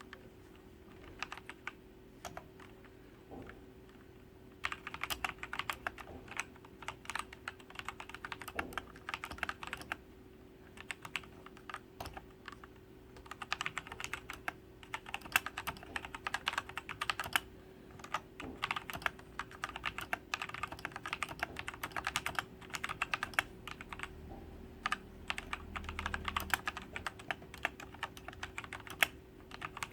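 Typing on a Royal Kludge RK Sink104Pro mechanical keyboard with red switches. A few scattered keystrokes come first, then quick runs of typing from about five seconds in, broken by short pauses.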